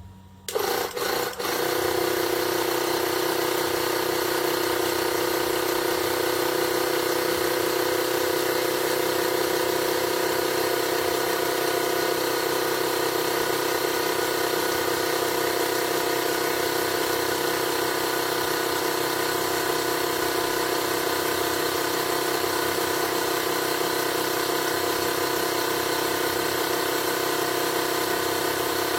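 Avid Power 12 V portable tire inflator's electric compressor starting up about half a second in and then running steadily, pumping up a car tire.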